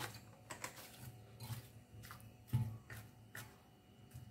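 Frozen banana slices being scraped off a cutting board with a spatula and dropping into a glass food-processor bowl: a scattered run of faint, light clicks and knocks at irregular intervals.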